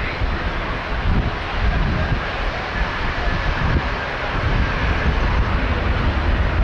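Airbus A350 airliner on final approach, its two Rolls-Royce Trent XWB engines giving a steady, dense jet noise that grows slightly louder as it nears. A faint thin whine sits over it in the middle.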